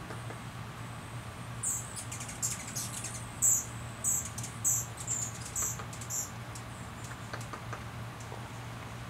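A hummingbird calling at a feeder: a series of high, sharp chip notes, about one every half second, starting a couple of seconds in and stopping around six seconds. A faint steady low hum runs underneath.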